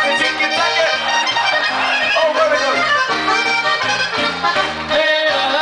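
Accordion playing an Oberkrainer-style polka tune: a melody over a steady, pulsing bass-and-chord accompaniment. The bass drops out briefly about five seconds in.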